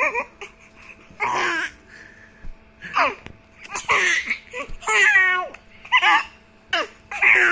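Baby laughing in short, high-pitched bursts, about one a second.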